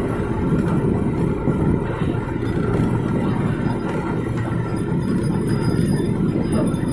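Loud, steady low mechanical drone of a fishing boat's engine and homemade gillnet hauler running while the net is hauled aboard.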